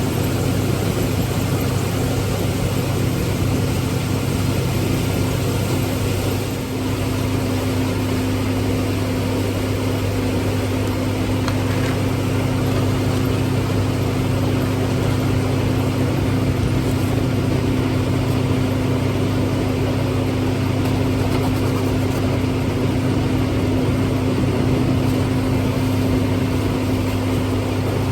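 Tractor engine running steadily at a constant speed while driving a feed grinder-mixer, a continuous low hum with one steady tone, easing off briefly about six seconds in.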